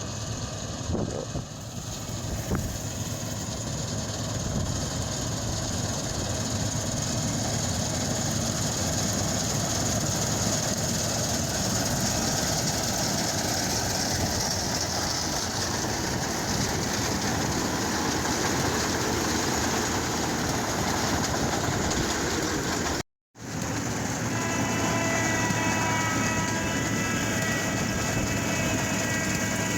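Self-propelled swather running steadily while cutting canola, a continuous engine and machinery drone. The sound cuts out for a moment about 23 seconds in, and after that a steady whine rides over the drone.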